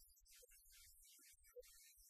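Near silence, with faint background music.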